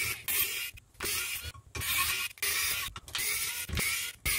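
Wowstick electric precision screwdriver running in a string of short bursts with brief pauses between them, a small motor whine, as it undoes the screws of a resin 3D printer's vat frame.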